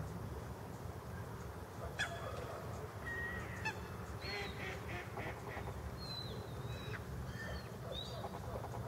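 Waterfowl calling: scattered short calls, with a quick run of honk-like notes about four seconds in, over a steady low rumble.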